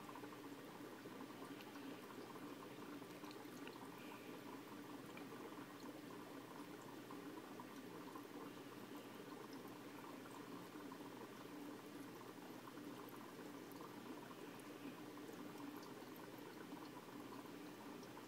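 Faint, steady bubbling and trickling of aquarium water.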